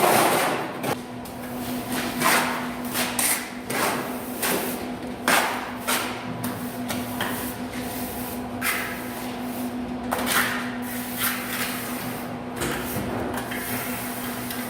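Steel plastering trowel pressed and slid across wet plaster on a wall, a run of irregular scraping strokes, over a steady low hum.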